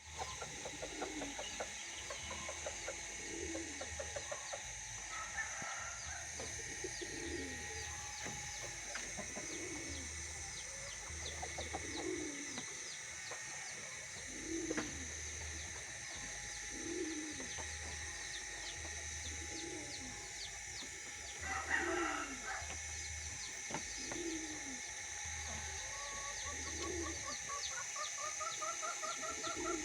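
Birds calling: a low coo-like call repeats about every second and a quarter over dense high chirping and a steady high hiss, with a quick rising run of clucking notes near the end.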